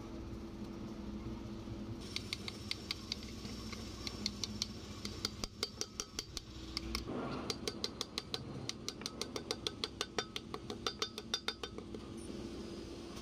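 A hammer tapping the oil seal into a grease-packed truck front wheel hub: a long run of quick light metallic taps, several a second. The taps start about two seconds in, pause briefly about halfway, then run on faster until near the end. This is the seal being driven home.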